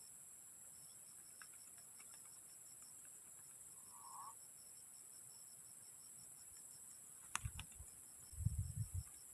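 Insects droning steadily in a high-pitched band, with a cricket chirping in a fast, regular pulse of about five chirps a second. A short faint call comes about four seconds in. Near the end there is a sharp click, then low thumps.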